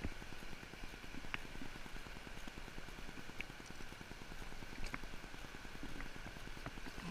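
Faint river water running around a drifting boat, a steady low rush with a few scattered light clicks and taps.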